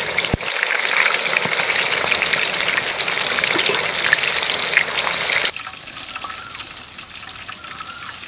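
Whole chicken sizzling and crackling in hot oil, with one sharp click just after the start. About five and a half seconds in, the sizzle drops suddenly to a quieter, softer hiss.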